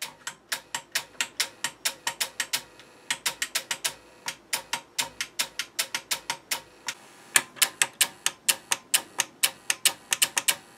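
Rapid, sharp clicking, about four or five clicks a second with two short breaks, as an old APC Back-UPS 650 is switched on and off over and over at its front switch while under load.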